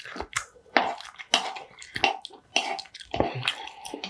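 Wooden spoon stirring and scooping soft, moist rice in a large bowl, scraping and knocking against the bowl in short strokes about every half second.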